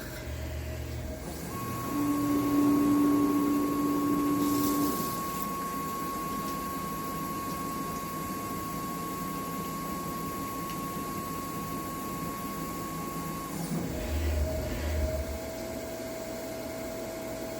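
Tormach 1100MX CNC mill at work, its spindle running with a steady whine while a 3/16-inch carbide drill cuts into cast iron dry, without coolant. Brief low hums of the machine moving come near the start and again about 14 seconds in.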